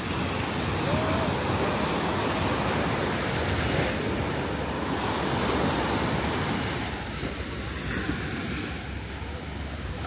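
Ocean surf breaking and washing up the beach: a steady rush of noise that grows louder about a second in and eases off after about seven seconds.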